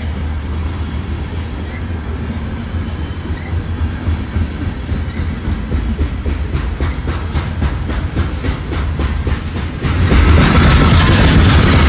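Freight train of covered hopper cars rolling past, a steady low rumble with the clickety-clack of wheels over the rail joints. About ten seconds in the sound steps up, louder and harsher.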